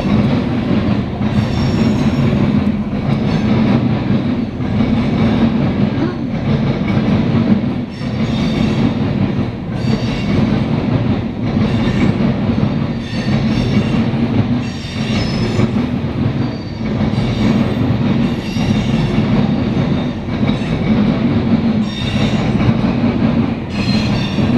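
Freight cars of a CSX grain train rolling past at close range: a steady heavy rumble with rhythmic wheel clatter over the rail joints and high-pitched wheel squeal that comes and goes every second or two.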